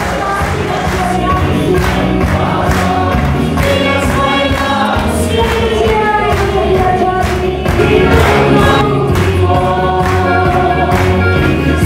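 A choir singing with instrumental accompaniment and a steady beat.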